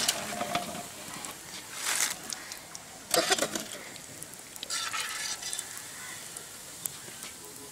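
Egg rolls deep-frying in hot oil in an aluminium pan, sizzling steadily. A wire skimmer scrapes and clinks against the pan several times as the rolls are lifted out.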